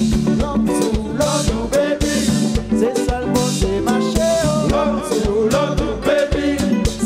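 Live band playing an upbeat dance number: a drum kit keeps a steady beat under electric guitar and a sung lead vocal.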